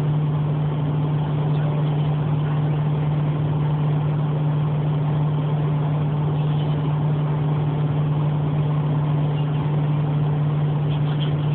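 Steady drone of a moving car heard from inside the cabin: road and engine noise with a constant low hum.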